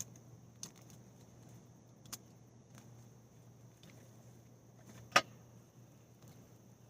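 A few sharp clicks and knocks from hands working roots and soil in a garden bed, the loudest about five seconds in, over a steady high-pitched hiss.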